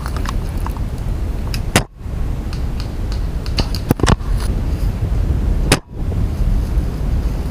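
Novritsch SSG24 spring bolt-action airsoft sniper rifle fired twice, about four seconds apart, each shot a sharp crack, with a smaller click between them. A steady low rumble runs underneath.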